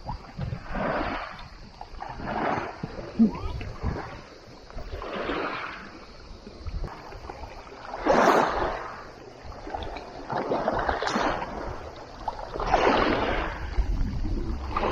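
Shallow water splashing at a pebble shore, in separate swishes every couple of seconds, with low wind rumble on the microphone.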